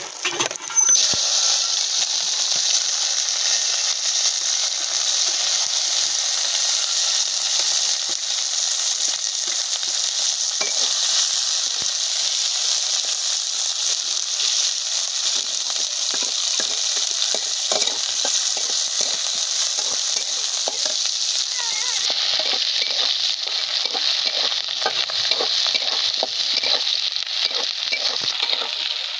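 Chopped red onions sizzling loudly in hot oil in an iron kadai, with a metal spatula scraping and stirring them around the pan. The sizzle starts with a burst about a second in as the onions go into the oil.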